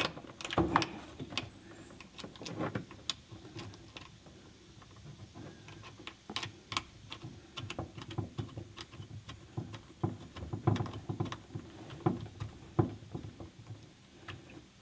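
Irregular small metallic clicks and taps as a battery cable's ring terminal is seated on the post and the terminal nut is turned down by hand.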